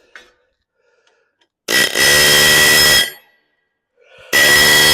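Pneumatic rivet gun hammering a hot rivet into a steering-shaft U-joint, in two bursts of about a second each, a second and a half apart.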